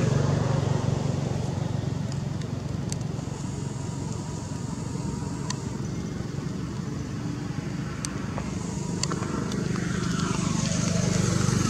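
A motor running steadily with a low hum, with a few faint sharp clicks over it.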